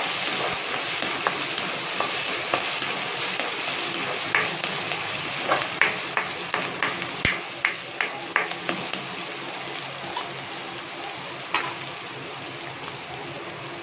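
Green chillies, ginger, garlic and curry leaves sizzling in hot oil in a kadai, with a ladle knocking and scraping against the pan in a quick run of strokes in the middle.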